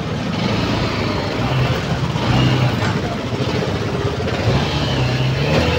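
Motorbike engine running in slow, congested street traffic, with the mixed noise of surrounding cars and bikes. The engine note climbs in the last second or so, as if the bike speeds up.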